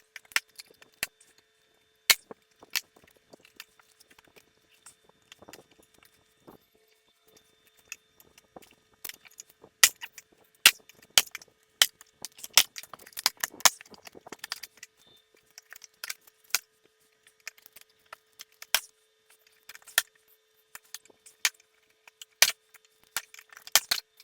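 Plastic push-in trim clips being pried out of a golf cart's plastic body panel with a trim tool: a long string of sharp clicks and snaps, thickest in the middle stretch.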